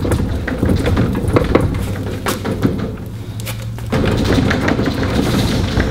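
Irregular knocks, clicks and clunks of a corroded Yamaha V6 outboard gear case being wiggled and pried loose from the midsection, over a low steady hum.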